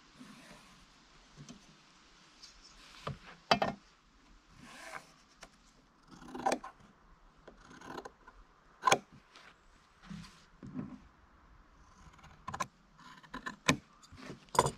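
Fabric being handled, marked and cut with scissors on a wooden table: rustling of the cloth, scattered sharp taps and knocks, and a cluster of quick scissor snips near the end.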